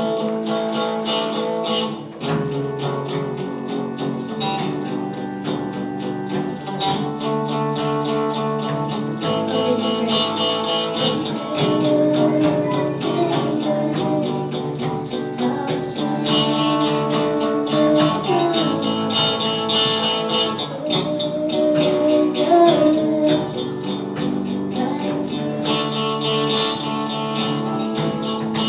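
Small live band playing a song: strummed electric guitars and bass guitar over a drum kit keeping a steady beat.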